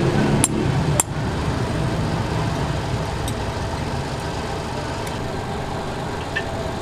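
Two hammer blows on a punch held against a hot steel razor blank on an anvil, about half a second apart near the start. A steady mechanical drone runs underneath.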